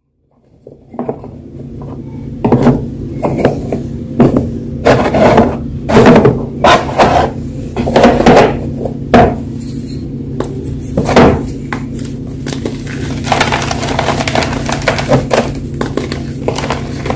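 Blocks of fresh gym chalk being crushed, giving a run of separate sharp crunches that settle into a denser, steadier crumbling about three-quarters of the way through.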